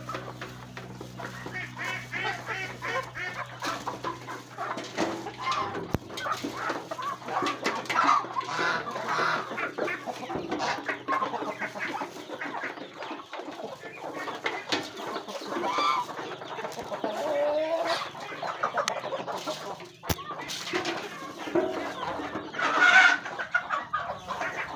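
Chickens clucking continuously while feeding on rice, with many short taps and clicks of pecking beaks, and one louder call near the end.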